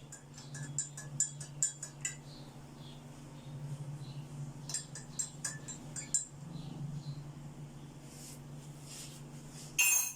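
A spoon clinking against a cup in two quick runs of taps, as honey is spooned and stirred into cups of kahwa. A steady low hum runs underneath, and there is a short rustle-like burst near the end.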